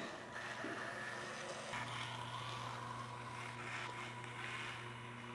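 The Hack Pack Domino robot's two electric drive motors whirring steadily as it drives and steers to avoid obstacles. The whirr gets louder a little under two seconds in.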